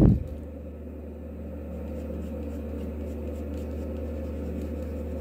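Faint, quick strokes of a mechanical pencil's fine lead scratching on drawing paper, over a steady low hum.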